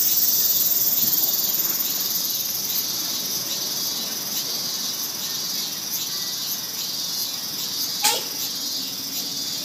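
Insects chirping steadily in the background. About eight seconds in, one quick, sharp swish and rip: a katana slicing through a sheet of newspaper held up between two people.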